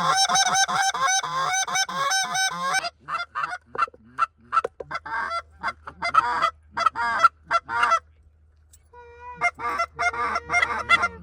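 Geese honking: a dense run of many overlapping honks for about three seconds, then single honks spaced out, a short pause about eight seconds in, and more honks near the end.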